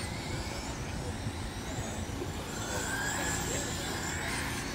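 Radio-controlled dirt oval race cars running laps, their motors whining and rising and falling in pitch as they pass, over a steady low rumble.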